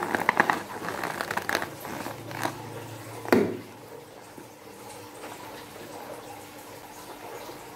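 Hands squeezing and rubbing a slime-filled rubber balloon: small rustling and clicking handling sounds, with one sharp click a little over three seconds in, then quieter handling.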